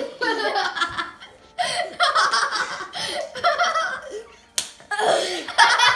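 People laughing and giggling in several bursts, with one sharp click about four and a half seconds in.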